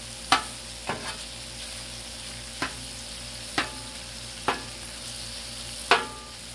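Sliced smoked sausage and celery sizzling on a Blackstone flat-top griddle. A metal spatula clacks and scrapes against the steel cooking plate about seven times at irregular intervals as the sausage is turned.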